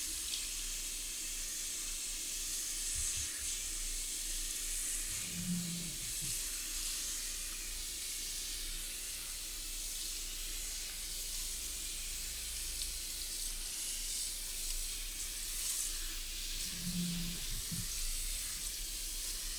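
Water running steadily at a barber's wash basin during a hair wash: an even hiss with two brief low tones, about five and seventeen seconds in.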